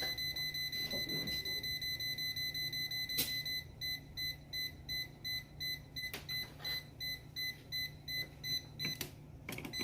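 Klein Tools non-contact voltage tester beeping at an outlet: fast, almost continuous beeps for about three seconds, then slower separate beeps, about two to three a second, with a few clicks. The slow beeping means there is still some voltage at the outlet, though not full voltage.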